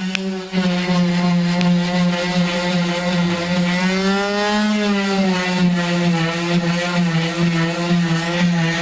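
Electric power sander running with a steady motor whine; the pitch rises a little about four seconds in and settles back down as the load on it changes.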